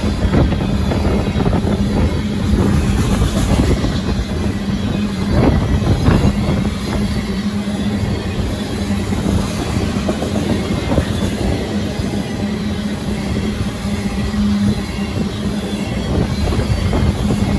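Freight train of tank cars rolling past, steel wheels clicking and knocking over the rail joints, with a steady low hum.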